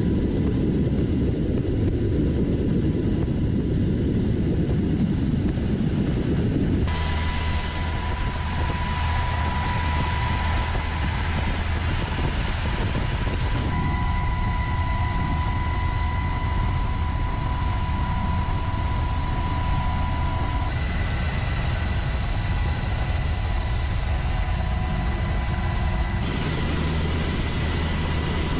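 Steady cabin noise of a military rotorcraft in flight with its door open: a heavy rumble of engines and rotors with a steady high whine. The mix changes abruptly about every seven seconds.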